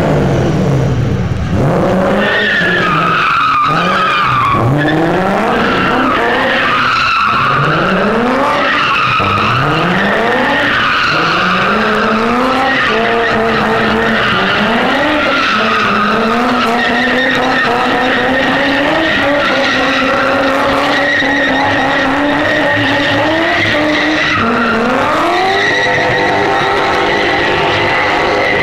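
BMW E30 drift car's engine revving hard in repeated rising sweeps while its rear tyres spin and skid through a smoky burnout. About twelve seconds in, the revs hold high and climb slowly, then surge once more near the end.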